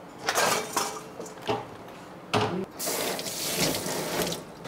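Soup splashing and dripping in a bowl as chopsticks stir it and lift kimchi out: a few short splashes, then a longer stretch of sloshing in the second half.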